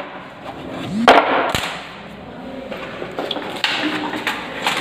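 Handling noise: knocks, scrapes and clicks as switchboard panels and frames are picked up and set down. The loudest knock comes about a second in, with a few sharper clicks near the end.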